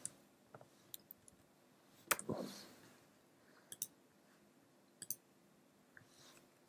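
Faint, scattered clicks of a computer keyboard and mouse, a few isolated keystrokes and clicks with one louder click about two seconds in.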